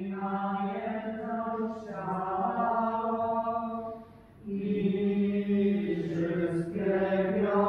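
Church congregation chanting a sung prayer in unison at mass, on long held notes, with a short pause about four seconds in.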